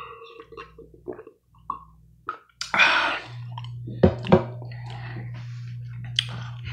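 Swallowing from a cup, then a breathy exhale about three seconds in and two sharp knocks as the cup is set down. A steady low hum of unknown origin starts about halfway through and keeps going; it is an intermittent noise that the person can't identify.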